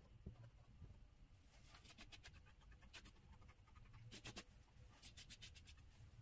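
Near silence, broken by a few short bursts of faint rapid ticking as loose scenery gravel is worked by hand and with a paintbrush.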